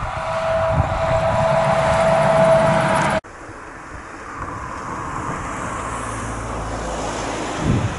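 A VDL Bova Futura coach drives past close by, its engine and road noise growing louder with a steady whine. About three seconds in the sound cuts abruptly to a Volvo FH4 truck with a trailer running along the road further off, a quieter low engine hum with road noise.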